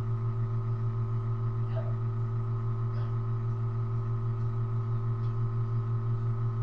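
A steady low hum with overtones, pulsing slightly in loudness, with a couple of faint small sounds about two and three seconds in.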